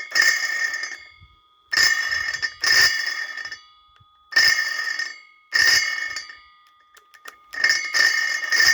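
Einhell 18V cordless circular saw triggered in repeated short bursts, each about a second long: the motor spins up with a high ringing whine and dies away, then starts again, sounding horrible. The saw is playing up, which the owner puts down to the brushes, the gearing (perhaps a tooth or two off the main drive gear) or the trigger.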